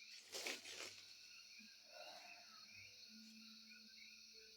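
Near silence: a faint steady high-pitched hum with faint scattered chirping, and a brief soft rustle about half a second in.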